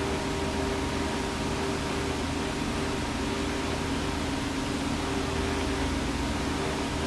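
Steady hum and hiss of kitchen machinery, such as ventilation fans, with a few constant tones and no change throughout.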